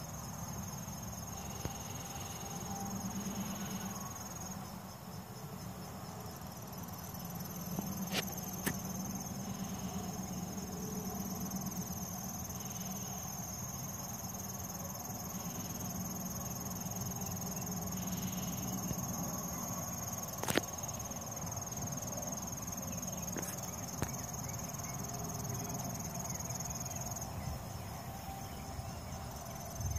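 Insects trilling in one steady, high-pitched tone, with the low buzz of flies swelling and fading every few seconds as they circle a carcass. A few sharp clicks, the loudest about two-thirds of the way through.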